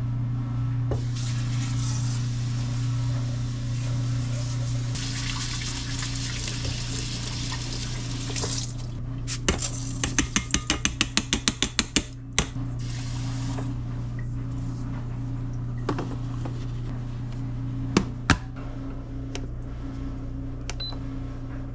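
Kitchen tap running in two spells, water filling a rice cooker pot for sushi rice, then a quick run of about a dozen clicks and a few later knocks, over a steady low hum.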